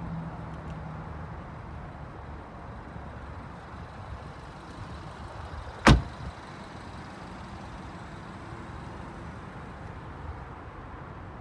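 A car door, on a 2014 BMW 328i sedan, shut once about six seconds in: a single sharp thud over a steady low background.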